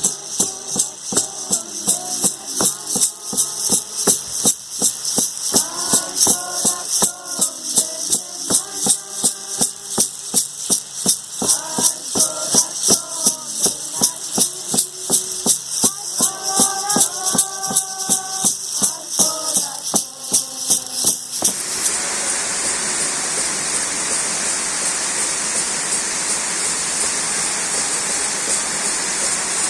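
A ceremonial song sung to a hand rattle shaken in a steady beat of about two strokes a second. About 21 seconds in, the singing and rattle cut off abruptly, leaving the steady rush of a waterfall.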